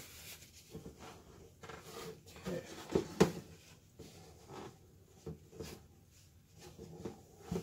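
Handling noise of a clear plastic box being wiped with a paper towel: rubbing and scattered light knocks against the plastic. There are two sharp knocks close together about three seconds in.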